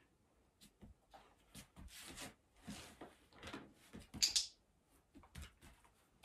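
Soft rustling of a dog harness being handled while a puppy takes treats, with one sharp double click of a training clicker about four seconds in.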